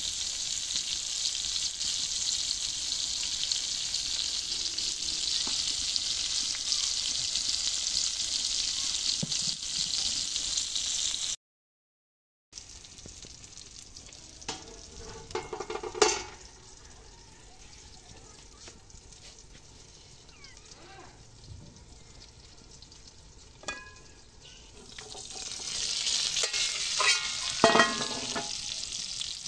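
Tomato slices sizzling in oil on a flat metal griddle over a wood fire, a steady hiss. After a short break the sizzling is much fainter under a metal pan set over the food as a lid, with a sharp metal clank. Near the end the lid comes off and the sizzling grows loud again, with a few metal clinks.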